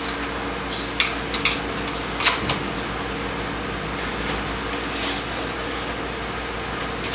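A few light clicks and taps of a hand screwdriver and the plastic switch housing as the handlebar control pod is screwed back together, over a steady background hum.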